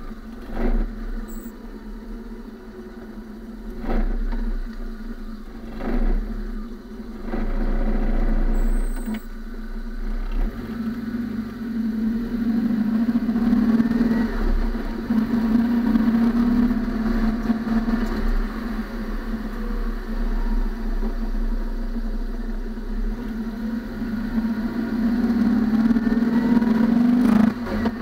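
Car driving, heard from a microphone inside the front wheel well: tyre and road noise over a steady low drone, growing louder as the car picks up speed from about ten seconds in. A few sharp knocks come in the first eight seconds.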